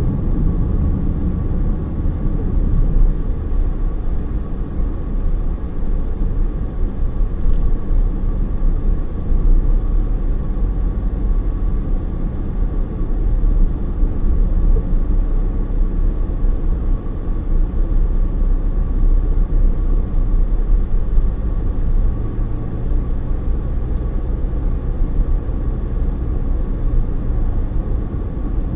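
Car driving at road speed, heard from inside the cabin: a steady low rumble of tyre and engine noise.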